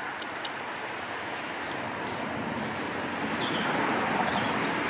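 Steady hiss of road traffic, swelling slightly louder toward the end, with a few faint ticks.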